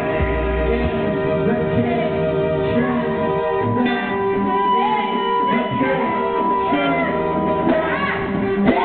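Live band music: guitar and sustained electronic tones, with a singer's voice coming through, clearest near the end.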